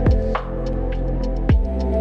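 Background electronic music: sustained chords over a deep, pitch-dropping kick drum that hits twice, about a second and a half apart, with light ticking above.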